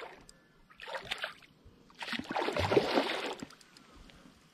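Water splashing at the boat's side as a hooked golden perch is brought to a landing net and scooped up. There is a short splash about a second in, then a longer, louder one from about two seconds in.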